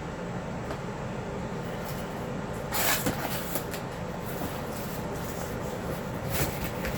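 Heater box and its packaging being handled during unboxing, with a sharp scrape or rustle about three seconds in and a few softer ones near the end, over a steady low hum.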